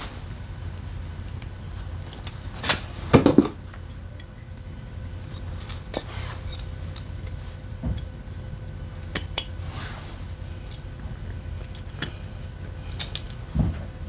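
Metal tools and engine parts clinking and knocking at irregular intervals, the loudest clatter about three seconds in, over a steady low hum.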